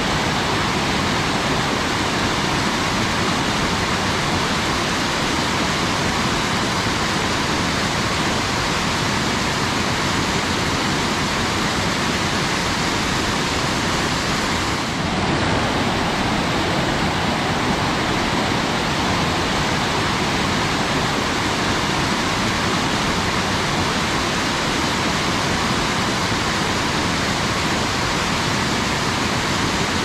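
Waterfall cascading over rocks: a loud, steady rush of falling water that dips briefly about halfway through.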